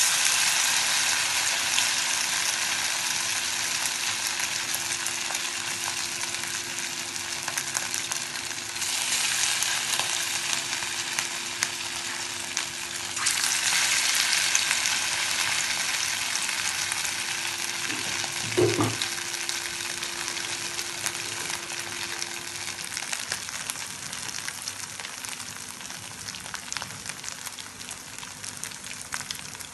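Masala-marinated fish pieces sizzling in hot oil in a frying pan. The sizzle starts suddenly as the first piece goes in and flares up again about 9 and 13 seconds in as more pieces are added, then slowly settles.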